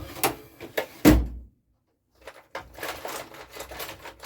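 Rummaging through a parts container for a spare part: a few knocks, a heavy thump about a second in, then a run of clattering as small parts are shifted about.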